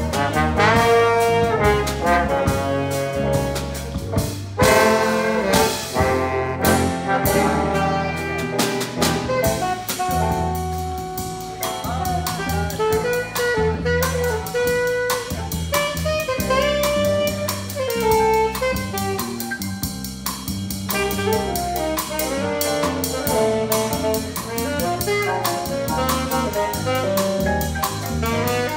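Small jazz combo playing live: saxophones and trombone carry the melody over a drum kit and electric bass line.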